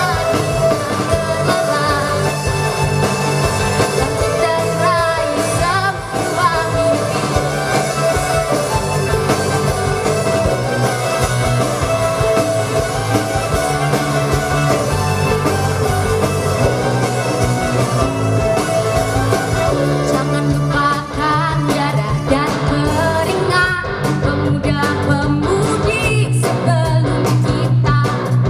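Live rock band playing: a female singer over electric guitars, drum kit and keyboard.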